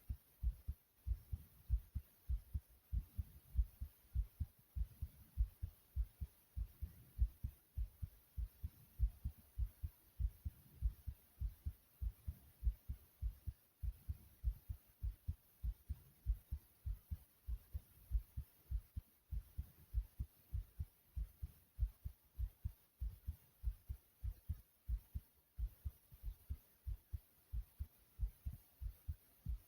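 A person's heartbeat after exercise: a fast, regular rhythm of low thumps, about three a second.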